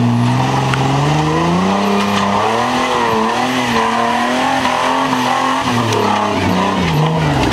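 Engine of a one-ton Jeep Wrangler TJ revving under load as it climbs a rocky trail. The engine note rises after about two seconds, wavers up and down with the throttle, and drops back near the end.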